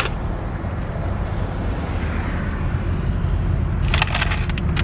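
Steady low rumble of road and engine noise inside a car's cabin. There is a sharp click at the start and a quick run of clicks and rustles about four seconds in.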